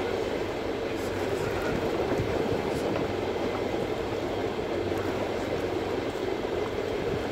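Fishing boat's engine running with a steady rumble, mixed with sea and wind noise, with a few faint ticks.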